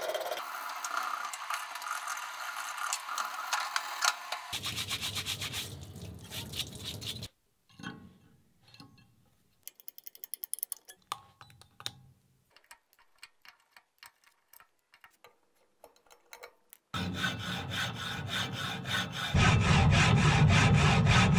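A screwdriver scraping plaster investment off a cast aluminium knife in a steel sink, with quick strokes. Then a quieter stretch of scattered light taps and scrapes from a chisel on the bare casting. Then a hacksaw cutting through the aluminium sprue with fast, even strokes, much louder near the end.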